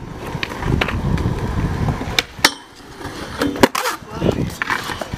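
Skateboard wheels rolling on concrete, with several sharp clacks of the board hitting the ground, the loudest about two and a half seconds in.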